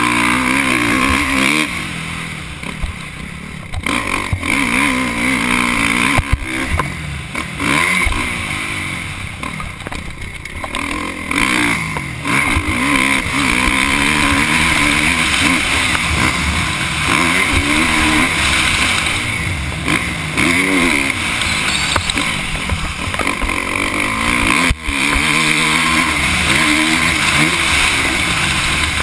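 Kawasaki KX450F dirt bike's single-cylinder four-stroke engine revving hard and easing off again and again as it is ridden at speed, the pitch climbing through each gear and dropping back when the throttle closes.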